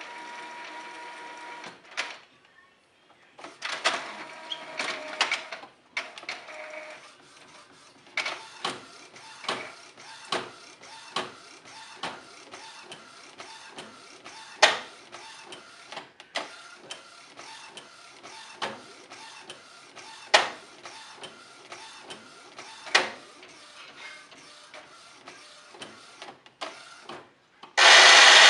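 Epson P50 inkjet printer running, its carriage motor whining, then knocking hard over and over at uneven intervals with some much louder bangs: the knocking and growling fault that the uploader ties to the encoder strip. A loud steady rushing noise starts just before the end.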